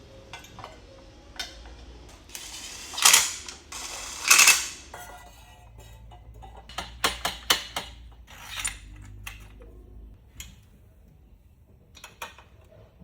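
Hand tools being worked on a minibike's engine fittings: scattered metal clicks and clanks. There are two louder rasping bursts about three and four and a half seconds in, and a quick run of clicks later on.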